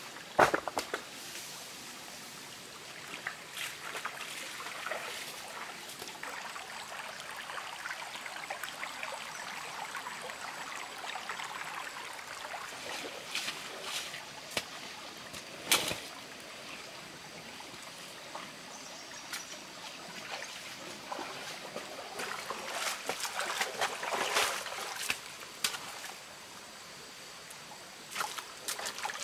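Shallow stream trickling over rocks, with a few sharp knocks on top, the loudest about half a second in and another about halfway through.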